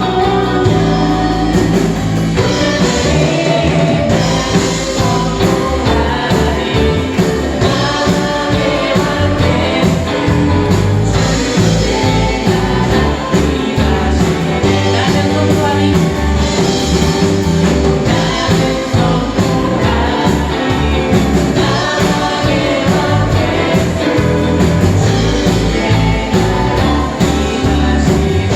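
Church praise team singing a worship song as a group, with live instrumental accompaniment and a steady bass line.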